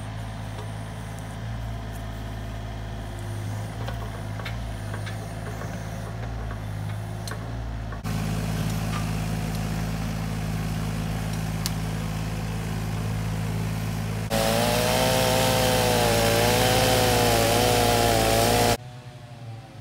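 Takeuchi mini excavator's diesel engine running steadily, with a few sharp clanks. In the last few seconds it is louder and closer, and a higher whine wavers up and down over the hum before it cuts off.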